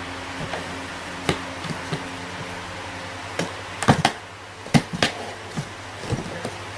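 Cardboard box knocking and bumping as a cat moves inside it and paws through its holes: a string of short, irregular knocks, the loudest about four and five seconds in. A steady low hum runs underneath.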